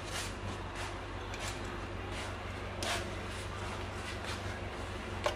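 Faint clicks and scrapes of a small hand tool working the mounting bolts of a newly fitted engine water pump, over a steady low hum.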